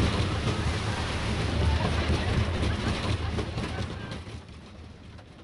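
Wooden roller coaster train rumbling along its track into the station, with people's voices over it. The sound fades away over the last second or so.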